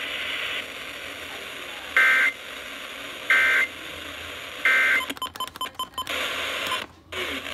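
Three short bursts of Emergency Alert System data tones, a buzzy two-tone warble about a second and a quarter apart over radio hiss: the end-of-message code that closes a weather alert broadcast. After them comes a rapid run of clicks, and the signal drops out briefly near the end.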